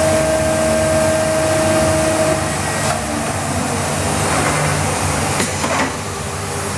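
Biesse Rover 23 CNC machining center running with a steady mechanical whir and hiss; a steady whine in it stops about two and a half seconds in, and a few light clicks follow.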